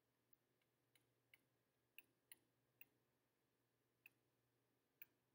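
Faint, irregularly spaced light clicks of a stylus tapping on a tablet screen during handwriting, about ten of them, over a faint steady low hum.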